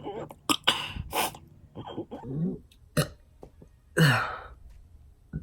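A man burping over and over: a quick run of short burps, several dropping in pitch, with the loudest and longest about four seconds in.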